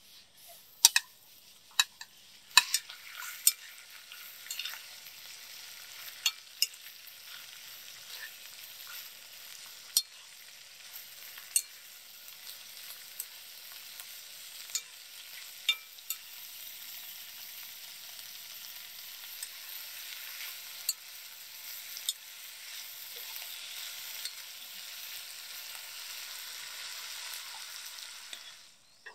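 Greens, carrot strips and sliced beef sizzling as they are stir-fried in a hot pan, with a metal spatula clinking and scraping against the pan now and then. The sizzle starts a few seconds in as the food goes into the pan, and the sharpest clinks come near the start.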